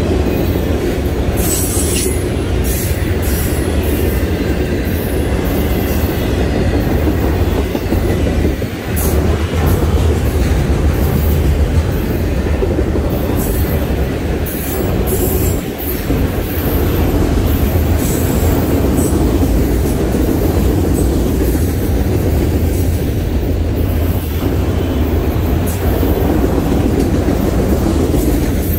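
Freight train of autorack cars rolling past at close range: a steady rumble of steel wheels on rail, with short high-pitched wheel squeals and clacks now and then.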